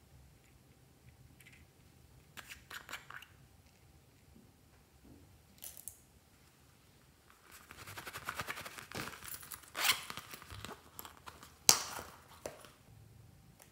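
Hands handling small plastic bottles and caps: scattered clicks, a stretch of dense crackling in the middle, and one sharp click a little before the end.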